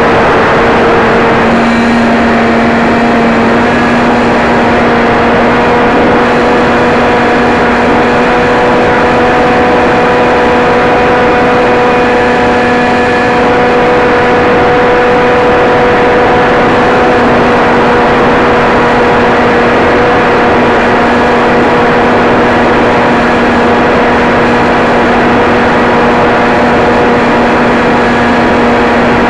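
Model aircraft's motor and propeller running at a steady speed, heard from the camera on board: a constant-pitched drone with loud wind rush over it.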